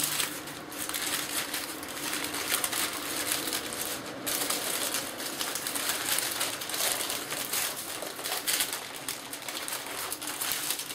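Baking parchment being peeled slowly off a freshly baked sponge sheet, crackling and rustling as it comes away.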